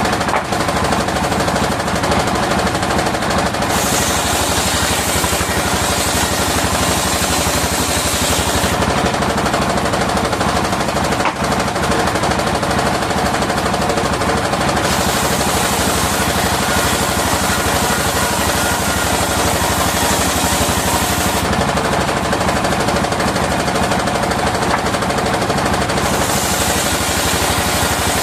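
Engine-driven circular sawmill running with a rapid, steady chugging. Three times the blade bites into waru (sea hibiscus) wood, adding a high hiss for several seconds at a time: about four seconds in, from about fifteen to twenty-one seconds, and again near the end.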